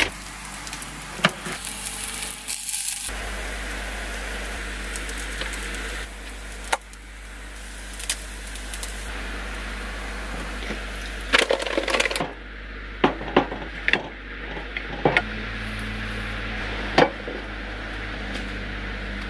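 Food-preparation sounds: scattered knocks, clicks and clinks of a plate and utensils being handled on a counter, most of them in the second half, over a steady low hum.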